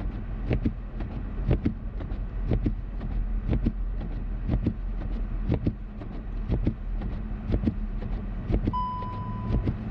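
Steady car engine and road hum heard from inside the cabin, with a pair of sharp thumps about once a second, typical of windshield wipers reversing at the ends of their sweep. A short electronic chime sounds once, a little under a second long, near the end.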